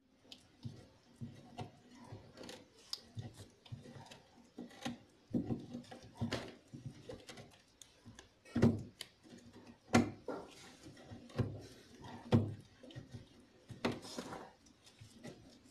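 A Siberian husky growling and grumbling in short irregular bursts, with a few sharp knocks against the wooden frame it is lying in.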